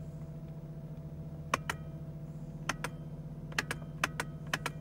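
Mercedes-Benz E320 (W210) engine idling with a steady low hum, heard from inside the cabin. Over it, steering-wheel buttons are pressed to scroll the instrument-cluster menus: five sharp double clicks, a press and release each, starting about a second and a half in.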